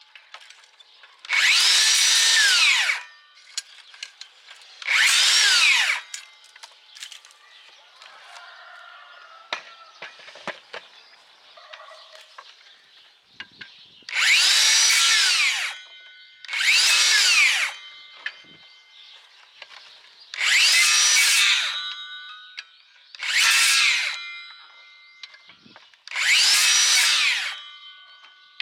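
DeWalt DCS578 60V FlexVolt cordless circular saw triggered in seven short bursts while cutting through thin dry branches. Each time the motor's whine rises as the blade spins up and drops quickly as the electric brake stops it. Between the cuts there are faint clicks and rustling of twigs.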